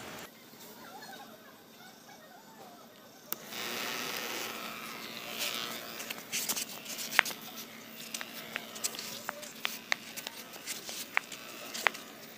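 Small electric hobby motor spinning a plastic propeller with a faint steady hum, joined by many scattered sharp clicks and ticks from about halfway through.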